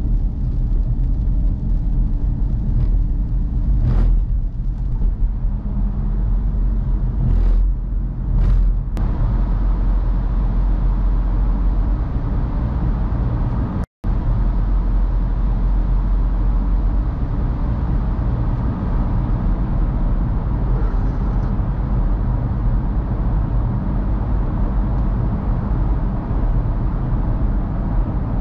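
Car driving at motorway speed on a wet road, heard from inside the cabin: a steady low rumble of tyres and engine, with a few brief swishes in the first ten seconds. The sound drops out for a split second about halfway, then the steady driving noise carries on in the tunnel.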